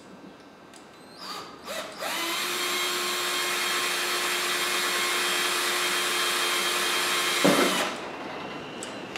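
A power drill runs steadily for about six seconds, drilling a hole upward into a golf cart roof to mount a radio enclosure. It starts about two seconds in, after a few light clicks, and stops near the end.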